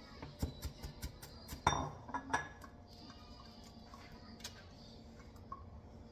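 Chef's knife chopping on a wooden cutting board, a quick run of taps, then a few louder knocks and clatter about two seconds in. Later, a few faint clicks as the ring-pull tab of a can of chickpeas is lifted.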